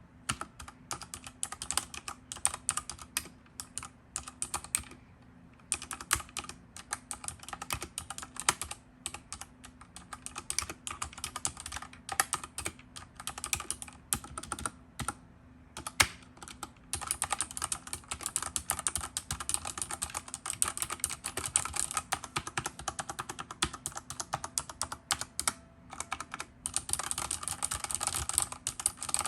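Fast typing on a Redragon K630 60% mechanical keyboard: dense runs of key clicks and clacks, broken by a couple of brief pauses.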